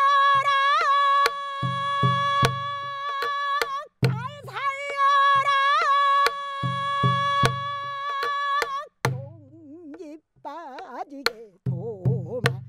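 Pansori singer's voice holding two long, high notes with wide vibrato, about four seconds each, over a buk barrel drum struck with a stick in a repeating rhythm of deep drum beats and sharp wood clicks. Near the end the voice drops lower and wavers, and the drum comes back in.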